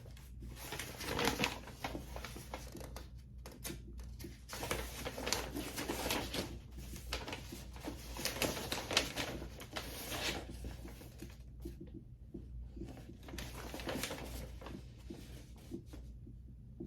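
Hands rustling and handling paper and packaging, in irregular spells of crinkly noise, over a steady low hum.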